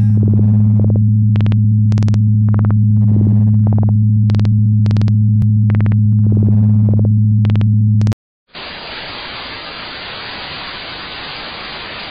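A loud steady electronic hum with ticks at a regular beat, cutting off about eight seconds in; after a short gap, a steady hiss of white-noise static follows.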